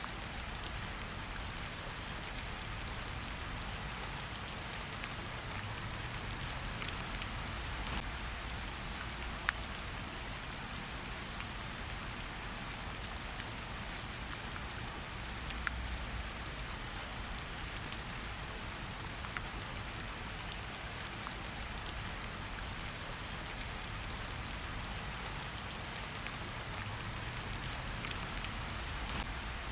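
Steady rain falling, with a few louder single drops standing out now and then.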